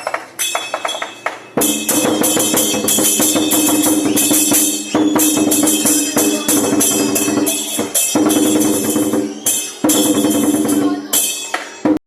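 Lion dance percussion: drum, cymbals and gong played loudly in rapid strikes over a steady metallic ringing, with a few brief breaks, stopping abruptly just before the end.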